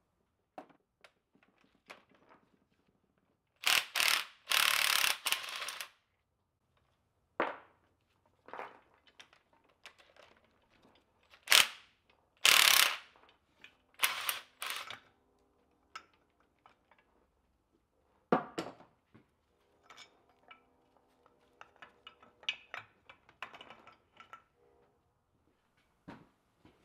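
Irregular metallic clanks, clinks and scrapes as a rusty old Wright screw hoist and its chain are worked on by hand, with several louder rasping bursts lasting a second or two.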